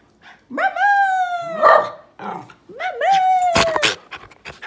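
Miniature schnauzer 'talking' in reply to being coaxed to say "mama": two long, drawn-out howl-like calls, each sliding down in pitch at its end. A short sharp noise breaks into the second call.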